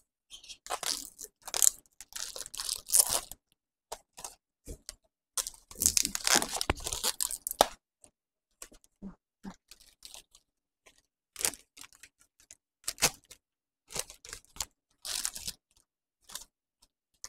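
Bouquet wrapping paper rustling and crinkling in irregular bursts as it is handled, the longest and loudest stretch about six to eight seconds in.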